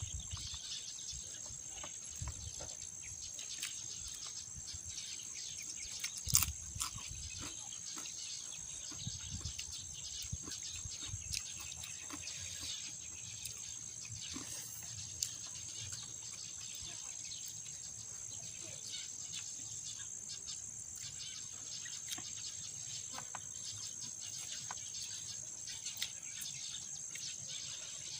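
Insects chirring steadily at a high pitch, with scattered small clicks and knocks of eating and handling food, one louder knock about six seconds in.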